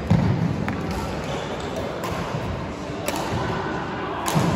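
Badminton rally: sharp racket strikes on the shuttlecock, three of them spaced over a few seconds, with dull thuds of footfalls on the court floor near the start and near the end.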